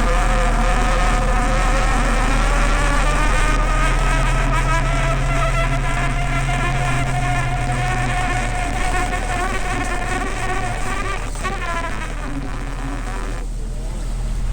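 Boat motor running with a steady whine that drifts slowly in pitch over a low hum; the whine drops away about a second before the end.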